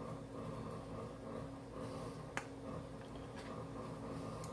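Faint, scattered soft clicks and light handling noises as fingers push a creamy steak-and-onion filling off a wooden spoon, over a low steady hum.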